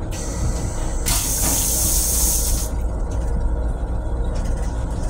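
M7 railcar toilet flushing: rinse water sprays into the stainless steel bowl with a hiss for about a second and a half, starting about a second in. A steady low rumble from the moving railcar runs underneath.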